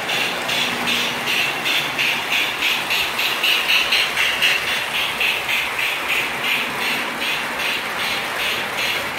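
O scale toy electric train running on three-rail track: a steady mechanical whir and rattle of the locomotive and cars, with an even, fast pulse of wheels clicking along the rails.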